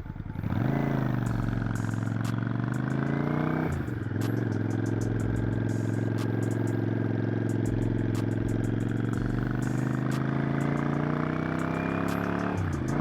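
Motorcycle engine pulling hard under acceleration, its pitch rising and then dropping at an upshift about four seconds in. It then climbs slowly through the next gear until another upshift near the end.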